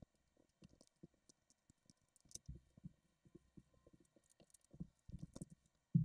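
Light clicks and taps of plastic LEGO pieces being handled and sorted on a tabletop, with a few soft thumps, the loudest at the very end.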